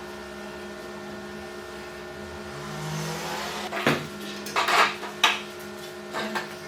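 Hard objects being handled in a workshop: a few sharp knocks and scraping clatters starting about four seconds in, over a steady low hum.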